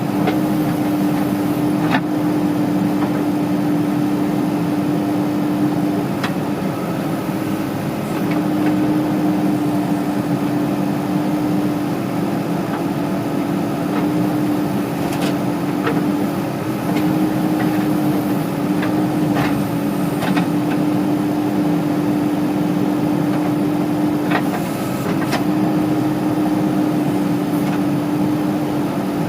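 Heavy diesel engine running steadily under work, its note dipping briefly now and then, with a few sharp metallic knocks scattered through.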